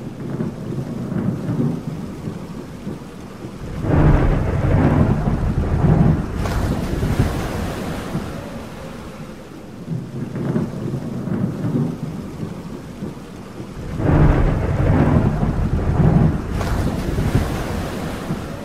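Steady rain with two long rolls of thunder, one about four seconds in and one about fourteen seconds in.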